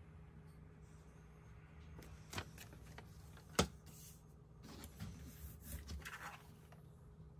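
Desk handling sounds around a Logitech K380 keyboard: a few sharp knocks, the loudest about three and a half seconds in, then a run of light clicks and rustles near the end as both hands move over the keyboard.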